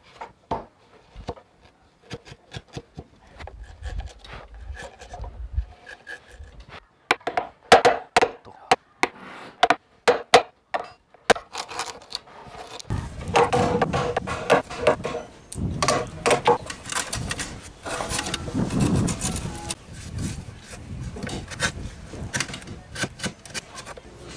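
Japanese chisel struck with a hammer into a timber beam, sharp taps in irregular runs. About halfway through it changes to the chisel pushed by hand, paring and scraping across the wood in dense, close strokes.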